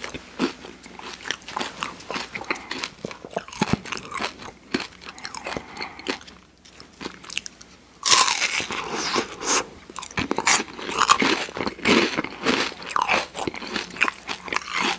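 Close-miked eating of soft-serve ice cream in a wafer cone: quiet mouth clicks and chewing, then about eight seconds in a loud crunching bite into the cone, followed by steady crunching and chewing.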